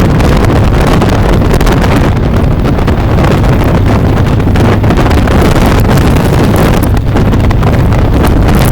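Heavy wind buffeting the microphone over a steady low rumble from a bike moving at speed.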